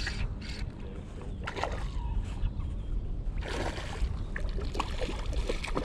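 Wind buffeting the microphone in a steady low rumble, with water sloshing in the shallows.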